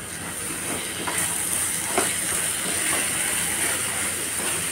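Nut-and-date ladoo mixture with powdered sugar sizzling in a hot frying pan while it is stirred with a spatula, with a few light scrapes. The steady hiss grows louder about a second in.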